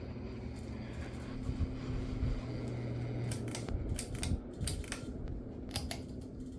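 42-inch Hampton Bay Landmark III Plus ceiling fan running on high, its loudest speed: a steady motor hum. A few sharp clicks come in the second half.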